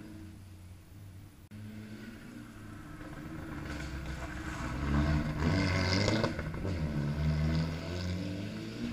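Rally car engine approaching on the gravel stage, its note rising and falling as it revs, growing louder and loudest about five to six seconds in.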